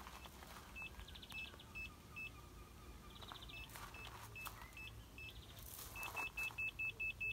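Park Safe rear parking sensor sounder beeping: short high beeps a few per second, quickening to a rapid run of beeps near the end as an obstacle comes closer to the rear bumper sensors.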